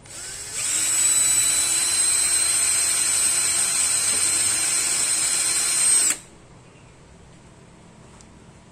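Bosch cordless drill running at steady speed, boring a hole through the plastic front skirt for an extra fixing screw. It spins up over the first second, holds for about five seconds, then stops suddenly.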